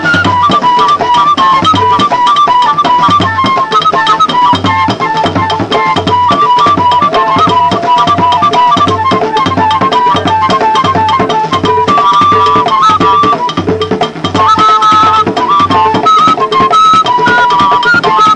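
Background music: a high melody moving in short, stepping notes over a steady, evenly repeating drum beat.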